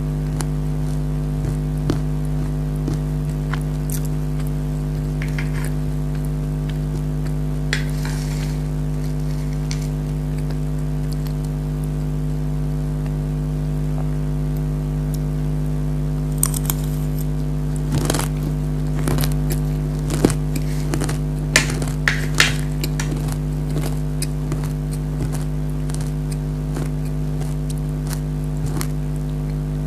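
Crunchy nimko being chewed close to the microphone: scattered crunches and crackles, busiest a little past the middle, over a steady low hum.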